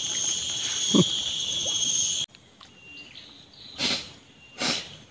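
Steady high-pitched insect chorus that cuts off abruptly about two seconds in. It is followed by two short splashes at the swamp water's surface about a second apart, fish striking around the float.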